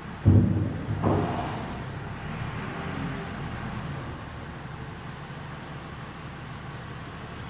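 JCB 436 wheel loader's diesel engine running under load as its bucket is pressed onto the concrete floor and the front wheels lift off the ground. There are two heavy knocks, about a third of a second in and again about a second in, and then a steady engine rumble.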